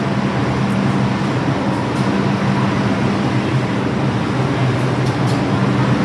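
New York City subway train standing at the platform: a steady hum with a low drone, over the noise of the underground station.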